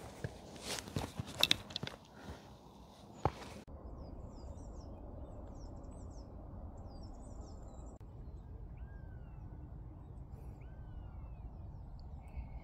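A few sharp footsteps or knocks on rock, then an abrupt change about three and a half seconds in to a steady low wind rumble with small birds chirping and giving short rising and falling whistles.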